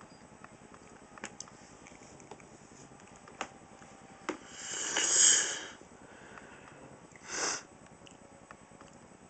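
Breathing and sniffing close to the microphone: one long breath about five seconds in and a short sniff a couple of seconds later, with a few faint clicks in between.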